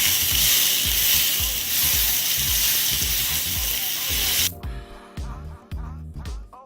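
Rib-eye steak sizzling in butter and oil in a hot grill pan, a steady hiss that cuts off suddenly about four and a half seconds in. Background music with a steady beat plays underneath throughout.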